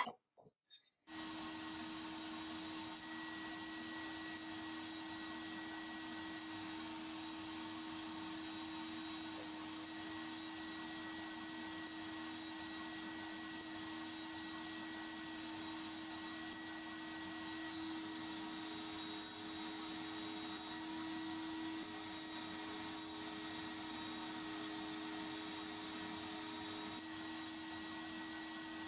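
A motor-driven machine running steadily: an even hiss with a constant whine, a second whine tone joining for a while in the second half.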